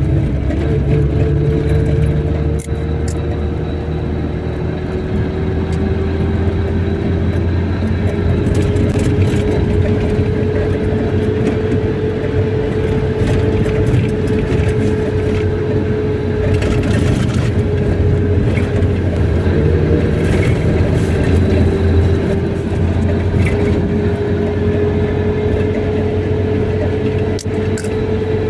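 Car driving steadily: continuous engine and road rumble, with a whine that drifts slowly up and down in pitch.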